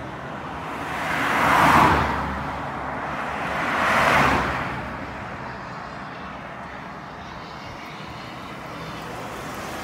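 Two vehicles passing by on the road, each swelling up and fading away, the first about a second and a half in and the second about four seconds in, followed by steady road noise.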